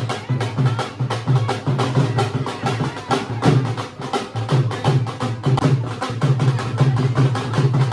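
Music driven by fast, steady drumming, the strokes coming several times a second without a break.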